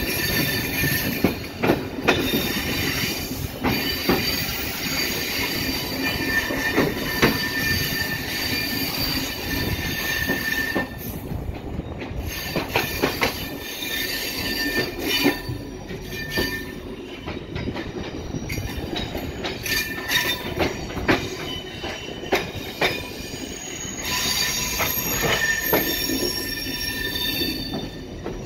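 Railway coach wheels squealing on curved track as a train rolls slowly through a yard, heard from aboard, with irregular clicks and knocks over rail joints and points. The squeal fades for a few seconds near the middle and comes back strongly near the end.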